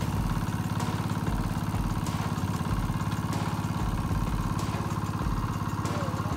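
A small engine running steadily at an even speed, with a rapid, regular pulse.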